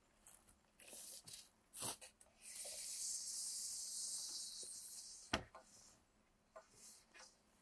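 Steel tape measure being hooked on the end of a pine board, then its blade drawn out along the board with a steady hissing rasp for about three seconds, ending in a sharp click, with a few lighter clicks and taps before it.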